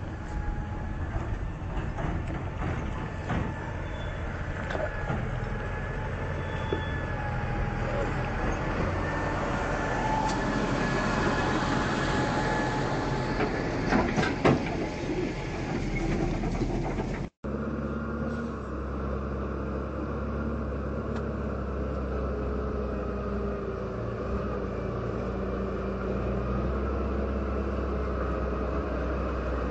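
Valtra T-Series tractor's diesel engine running steadily, with a few loud knocks about halfway through. The sound drops out for an instant a little past halfway, then the engine carries on at a steady note.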